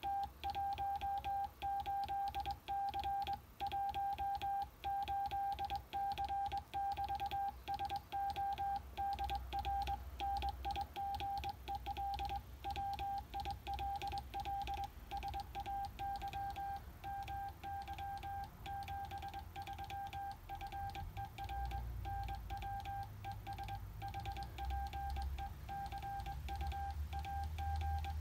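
Morse code (CW) from an Icom IC-725 HF transceiver: a single steady beep keyed on and off in dots and dashes, with faint clicks at each element. The tone is weaker in the second half.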